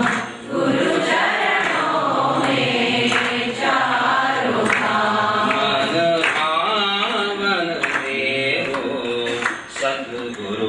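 Voices singing a Hindi devotional bhajan in long melodic phrases, with short breaks between phrases about half a second in and near the end.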